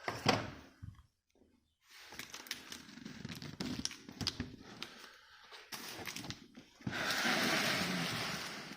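Handling of packaging and boxed parts. There is a sharp knock just after the start, then scattered clicks and rustling, and a longer steady rustling or sliding noise from about seven seconds in.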